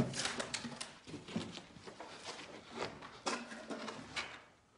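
Irregular rustling and crunching with scattered sharp crackles: footsteps and movement through scattered wooden debris and rubbish.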